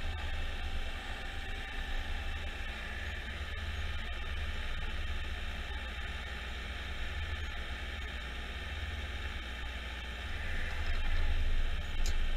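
A 2017 Jarcrac Dual forwarder's engine running steadily under load while its hydraulic crane loader swings and lifts a pulpwood log onto the load, with a short sharp knock near the end.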